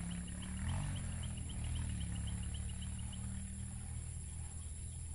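Outdoor insect chorus: a steady high buzzing with a rapid chirping trill of about eight chirps a second that fades out after about three seconds, over a low humming drone that rises briefly in pitch about a second in.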